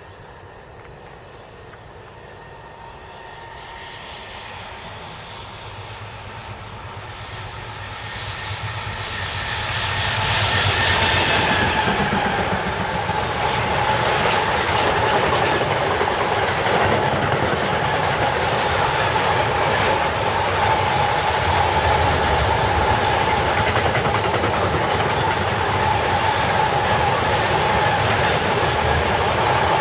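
A train approaching on the main line, growing steadily louder over the first ten seconds, then rolling past close by for the rest of the time. Wheel-on-rail rumble runs under a steady high whine.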